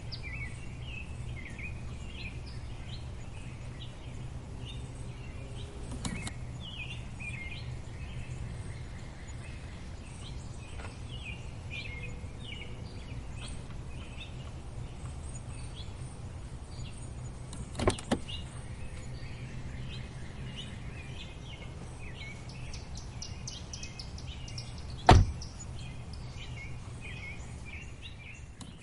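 Birds chirping over a steady low background rumble, with a few sharp knocks, the loudest near the end.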